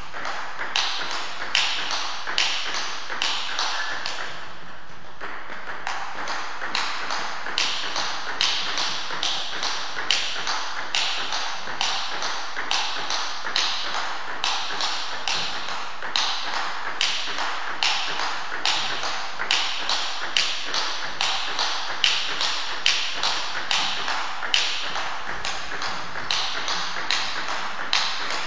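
Table tennis rally: a celluloid ball clicking back and forth off the bats and table in a steady rhythm of about two to three hits a second, with a short break about four seconds in.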